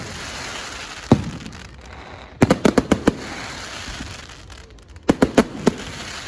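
Fireworks display with shells bursting in sharp bangs. There is one bang about a second in, a quick run of about six bangs around two and a half to three seconds, and four more around five seconds. A steady hiss of noise fills the gaps between them.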